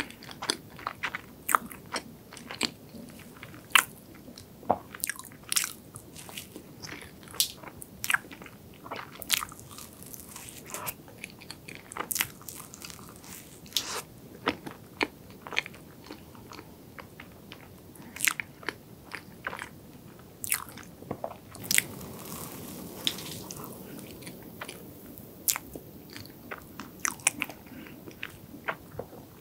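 Close-miked biting and chewing of a chocolate cream puff with a crisp, crumbly crust: irregular sharp crunches and crackles, with softer chewing in between.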